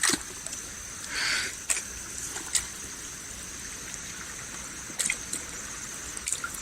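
River water trickling and dripping, with a few sharp small splashes or knocks and one short splashy burst about a second in.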